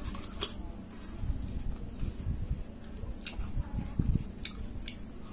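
Biting into and chewing a slice of juicy watermelon close to the microphone: wet mouth sounds with a few sharp clicks, the loudest thuds a little after the middle.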